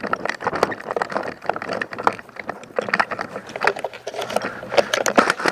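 Running footsteps on dry dirt and gravel close to the microphone, with the rattle and rustle of carried gear, as a player dashes between cover with an airsoft rifle.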